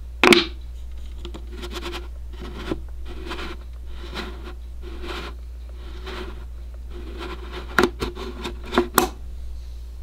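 The plastic halves of a BOBLOV magnetic body-camera clip rubbing and scraping against a wooden drawer panel, held together by their magnets through the wood. The scrapes come in a run of short strokes, about two a second. There is a loud clack about a quarter-second in and several sharp clacks near the end.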